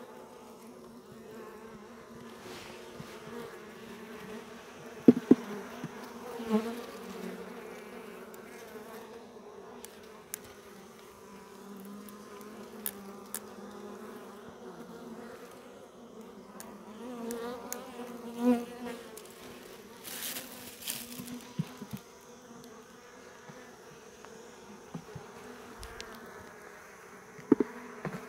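Honeybees buzzing steadily over the frames of an opened hive, with a few sharp knocks from the wooden frames and hive box being handled, the loudest about five seconds in and near the end.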